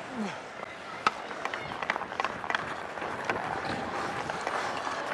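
Ice hockey play heard through a player's body microphone: a steady haze of skate and rink noise with scattered sharp clacks of sticks and puck.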